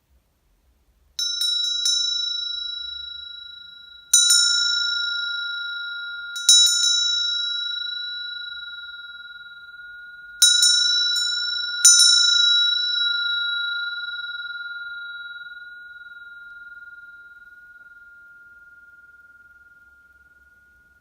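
Tibetan chakra bell (ghanta), 70 mm across, rung by hand in five strokes, some with two or three quick strikes. Each leaves a long steady ring on its main tone, F of the third octave, with a fainter higher overtone. After the last strikes it fades slowly over the final several seconds.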